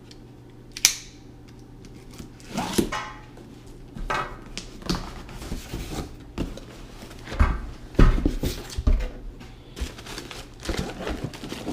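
A cardboard shipping box being opened and unpacked: a sharp click about a second in, then a run of scraping and rustling of cardboard and packing, with a couple of heavier knocks around eight seconds in as the parts are shifted.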